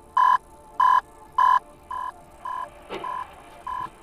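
A repeating electronic beep, about three every two seconds, becomes quieter a little under two seconds in. About three seconds in there is a short faint crash as two cars ahead collide.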